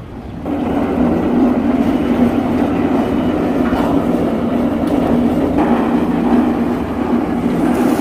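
JZC350 drum concrete mixer running, its drive turning the loaded drum with a steady mechanical hum and rumble that comes in about half a second in.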